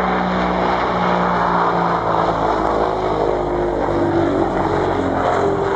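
Tupolev Tu-95MS bomber's four turboprop engines with contra-rotating propellers droning loudly as it flies low past, the tones of the drone shifting slightly in pitch.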